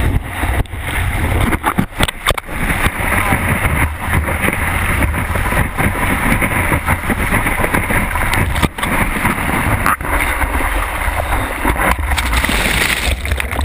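Rushing, churning surf and wind noise picked up by a GoPro HD HERO riding a large wave: a constant loud wash with a heavy low rumble and frequent short knocks of buffeting.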